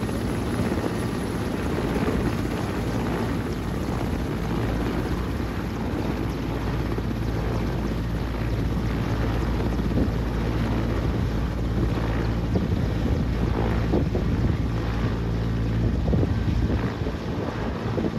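Mi-8/Mi-17-family twin-turbine transport helicopter running on the ground as it taxis, a steady rotor and turbine noise with a low hum. Wind buffets the microphone.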